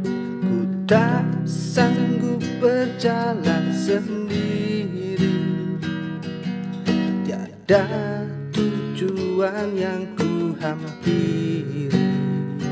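Song with strummed acoustic guitar and a voice singing the melody in Indonesian.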